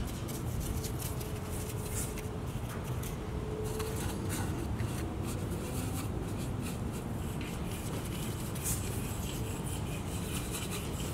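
A sable paintbrush scrubbing and dabbing on rough rockwork, with light clicks of the brush against a metal muffin tin of paint, over a steady low rumble.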